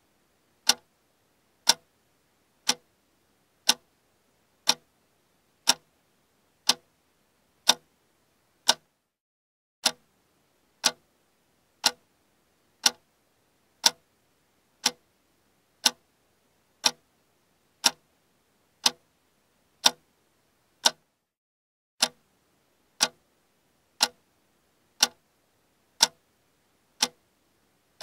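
Clock-tick sound effect for a quiz countdown timer: one sharp tick a second, steady and even. The beat drops out briefly about nine seconds in and again about twenty-one seconds in.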